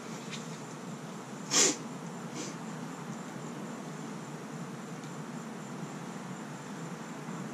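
A single short, sharp snort of someone forcefully clearing his nose, about a second and a half in, with a much fainter second puff just after.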